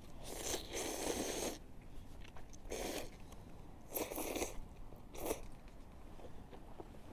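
Someone eating instant ramen noodles close to the microphone: four bursts of slurping and chewing, the first the longest.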